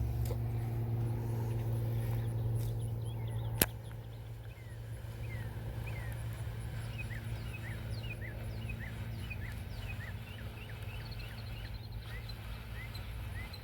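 Low rumble of a passing plane fading out over the first few seconds, then a single sharp click. After that a bird gives a long series of short chirps, about two a second.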